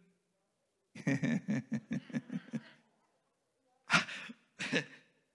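A man laughing in a quick run of short, even pulses, followed by two brief vocal bursts near the end.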